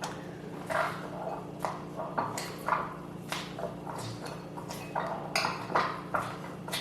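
A spoon mashing and popping cranberries in a bowl: repeated short clinks and squelches of the spoon against the bowl, about two a second.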